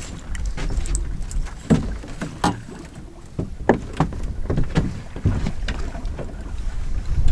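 Irregular knocks and clatters as a freshly landed haddock and the landing net are handled in the bottom of a small open fishing boat. Underneath is a low rumble of wind on the microphone.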